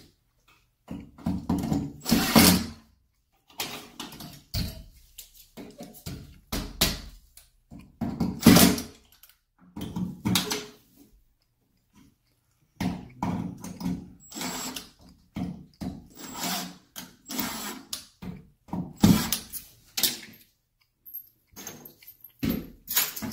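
Cordless drill-driver running in about ten short bursts, each a second or two long with pauses between, driving screws into wall anchors to fasten shower-panel mounting brackets.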